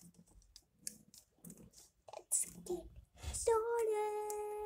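A young girl's voice holding one long sung note, steady in pitch, starting about three and a half seconds in. Before it, a few faint clicks.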